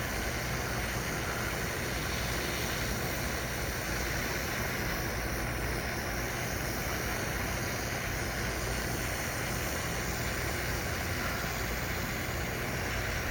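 Gas torch flame burning with a steady rushing hiss and low rumble as it heats a 0-gauge cable lug while solder is fed in.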